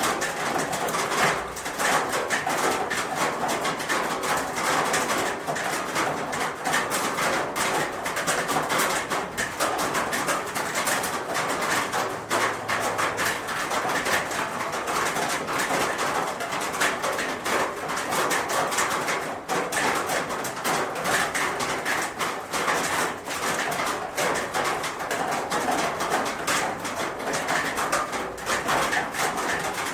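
Rain falling on a roof: a steady, dense mass of drop hits with no let-up.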